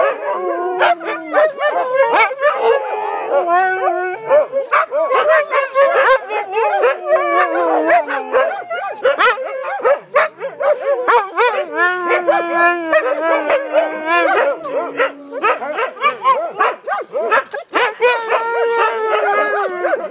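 A pack of Siberian huskies howling, barking and yipping together, several voices overlapping, many of them long calls that slide up and down in pitch.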